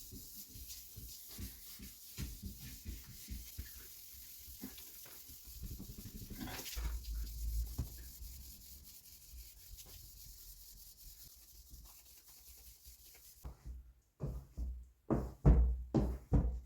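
Wet sanding (wet flatting) freshly lacquered car paintwork, with abrasive paper rubbing over the wet surface in irregular strokes. About 14 seconds in, music with a steady beat takes over.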